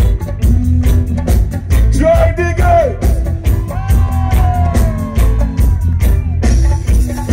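Live reggae band playing on a steady beat, with heavy bass and drum kit and long sliding melodic notes held over them, loud through a large PA.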